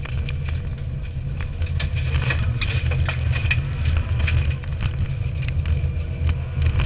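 Subaru Impreza N4 rally car's turbocharged flat-four engine running hard, heard from inside the roll-caged cabin as a loud, steady low drone. Frequent sharp clicks and knocks run through it.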